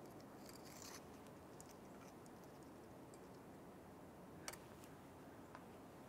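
Near silence with small handling noises from crimping pliers and wires: a faint rustle about a second in, then one sharp click about four and a half seconds in and a lighter one a second later.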